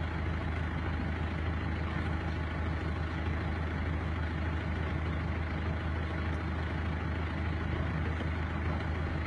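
Truck engine idling: a steady low hum with no change in pitch or loudness.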